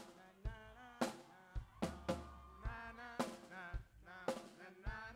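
A live band playing: the drum kit keeps a steady beat of about two hits a second on bass drum and snare, under a wavering melodic line.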